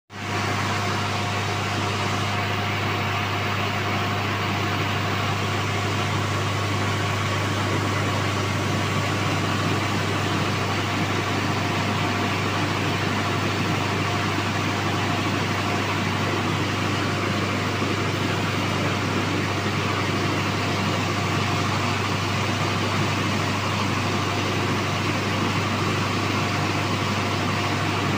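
Rice milling machine with its whitening and polishing units running steadily: an even mechanical whir and hiss over a low, constant hum.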